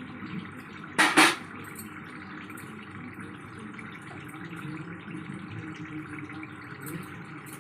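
Chicken curry bubbling and simmering in its own released water in a kadai, a steady watery cooking noise, with one short, loud burst of noise about a second in.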